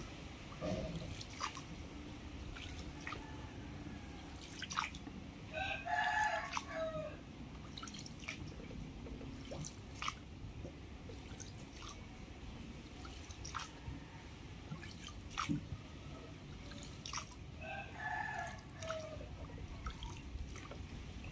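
A wooden paddle is worked alongside a small boat, with water dripping and splashing off the blade and scattered sharp knocks. A rooster crows twice, once about six seconds in and again near the end.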